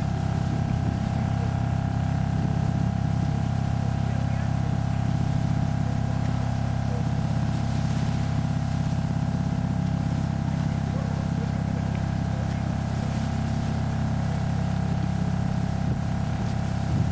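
A steady, unchanging hum with several constant tones, low and mid pitched together.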